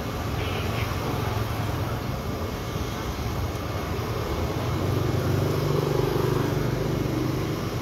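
Steady street traffic noise with a low engine rumble that swells about five seconds in as a motor vehicle passes.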